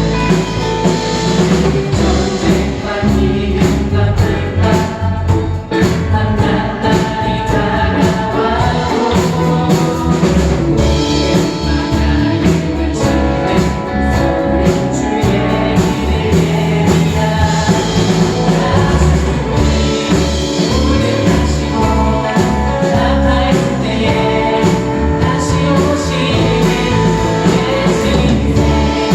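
Live church praise band playing a worship song, with voices singing together over drums, bass and guitar keeping a steady beat.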